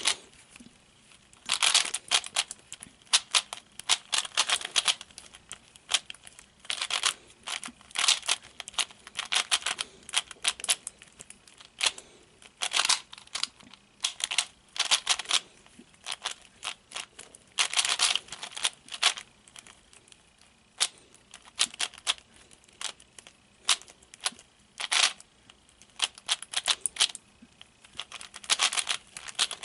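Diansheng 3x3 speedcube being turned fast during a solve: bursts of rapid plastic clicking and clacking from the turning layers, broken by short pauses.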